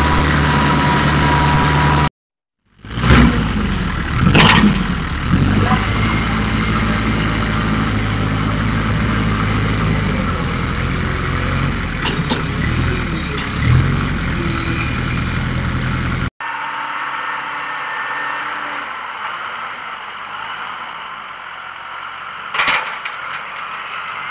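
Case IH compact loader tractor's engine running and revving under load as the bucket pushes into and stirs a leaf pile, with a few sharp knocks. About 16 seconds in the engine becomes fainter.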